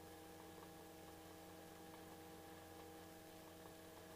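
Near silence: a faint steady electrical hum with a few constant tones on the headset intercom audio.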